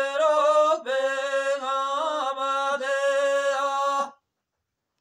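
A man singing a devotional verse unaccompanied, in long held, ornamented notes. The singing breaks off abruptly about four seconds in.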